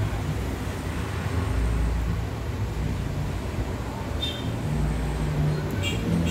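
Low, uneven rumble of a vehicle engine or traffic, with two brief high squeaks about four and six seconds in.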